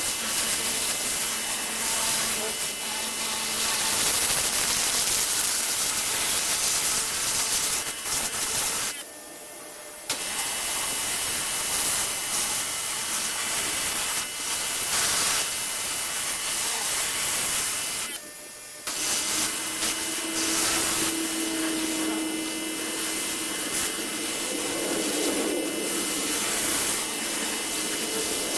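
Pressure washer spraying: a steady hiss of the water jet, which cuts out suddenly twice for about a second.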